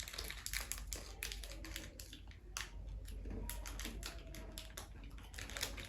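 Chewing M&M's milk chocolate candies, the sugar shells cracking in a quick, irregular run of small crunchy clicks.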